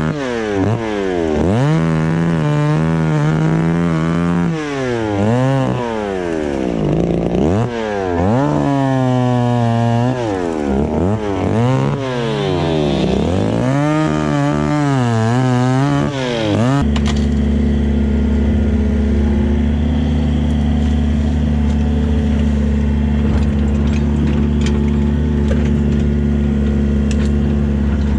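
Two-stroke chainsaw revving up and down again and again while it cuts through branches. About 17 seconds in, the sound changes abruptly to a mini excavator's diesel engine running at a steady pitch, heard from inside the cab.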